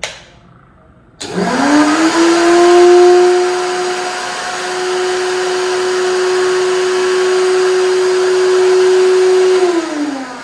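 Silvercrest blender's motor: a click, then the motor spins up quickly and runs at a steady high whine for about eight seconds before winding down near the end.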